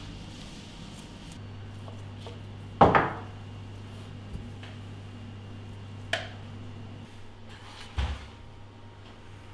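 Kitchen knocks from sushi being handled on a cutting board and plates: one sharp knock about three seconds in, the loudest, then two lighter knocks about three and five seconds later. A low steady hum runs under the middle of it.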